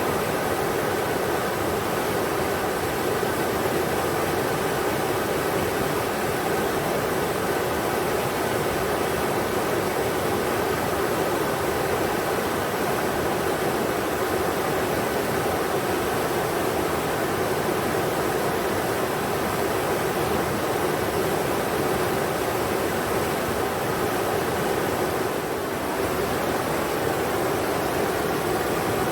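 River water rushing over rocks in a steady, even roar.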